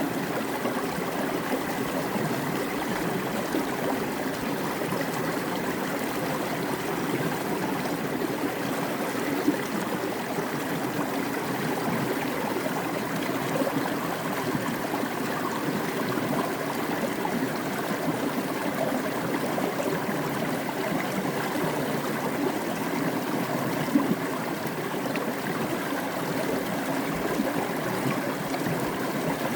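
Creek water cascading down a rock, a steady rushing and splashing with most of its sound in the low-middle range. A brief splash stands out twice, about ten seconds in and near twenty-four seconds.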